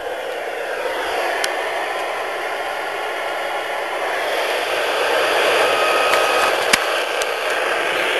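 Receiver hiss from a Yaesu FT-857 transceiver's speaker on 2-metre SSB: a steady rushing noise held within the narrow voice band, growing a little louder. Two faint steady whistle tones sound together for about a second past the middle, and a sharp click comes near the end.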